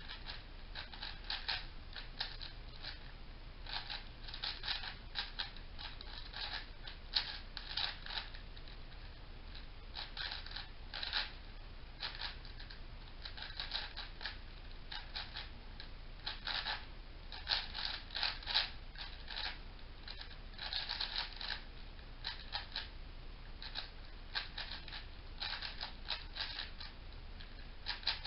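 MoYu AoChuang 5x5 plastic speed cube being turned fast by hand: flurries of rapid clacking layer turns, broken by short pauses.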